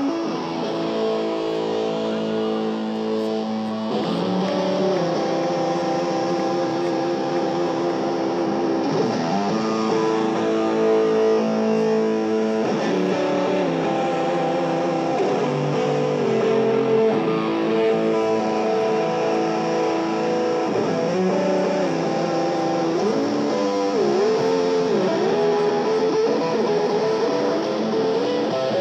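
Electric-guitar-led music playing loudly over a concert PA: held chords and a melody line, with wavering, bending notes in the last few seconds.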